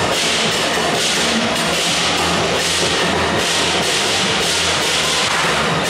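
Taiwanese temple-procession percussion: drums and crashing cymbals playing a steady, continuous beat.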